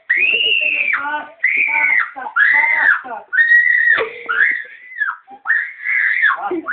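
A boy crying out in a string of short, high-pitched wails, about one a second, each rising and then falling in pitch: mock crying while being smacked.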